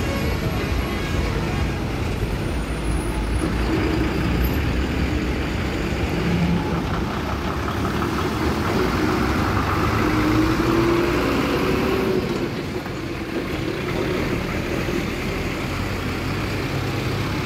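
Heavy loaded trucks passing close by one after another, their diesel engines running with steady tyre and road noise.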